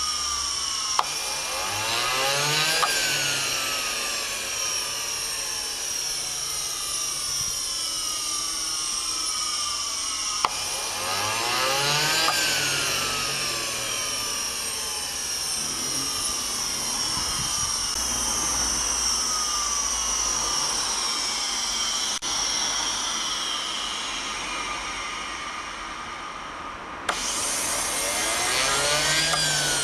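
JetCat model jet turbine running with a high whine, spooling up three times: each time the pitch climbs quickly to a peak and then winds down slowly over several seconds as the throttle is eased back. Near the end the sound suddenly jumps louder and brighter.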